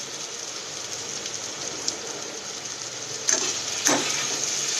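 Cubed pumpkin sizzling in hot oil in a nonstick kadai, a steady frying hiss. Near the end a spatula starts stirring the pieces, scraping against the pan twice.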